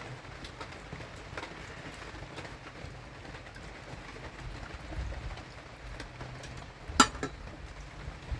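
Rain falling steadily, with scattered drop ticks. A sharp knock about seven seconds in, with a smaller one right after it, is the loudest sound.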